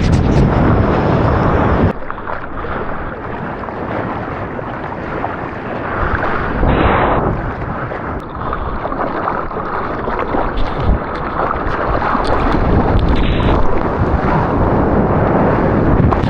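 Wind and rushing ocean water buffeting a small action camera's microphone while surfing. The noise drops abruptly about two seconds in, then swells again, loudest around the middle and near the end.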